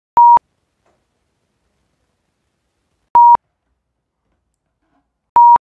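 Three short electronic beeps of the same steady pitch, each about a fifth of a second, with dead silence between them.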